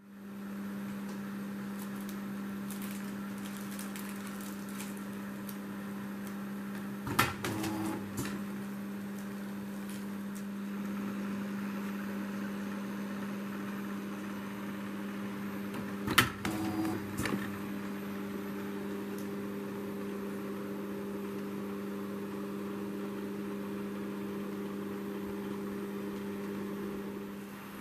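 Germark automatic wraparound labelling machine running: a steady electric motor hum from its drives, broken twice, about seven and sixteen seconds in, by short clusters of sharp clicks and knocks.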